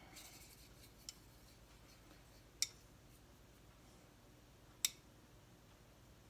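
Two sharp clicks about two seconds apart, with a fainter one earlier: small hard painting things, such as a brush handle and paint pots, knocking together while paint is mixed.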